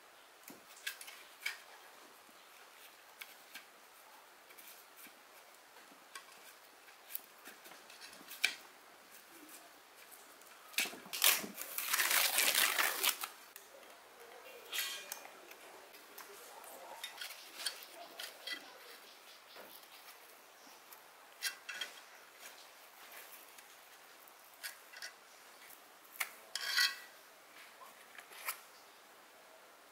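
Small hand tools and paper being worked on an old subwoofer driver as it is taken apart: scattered clicks and light taps of metal on the cast frame, with a louder rasping scrape and tear of the old paper cone lasting about two seconds a little before the middle.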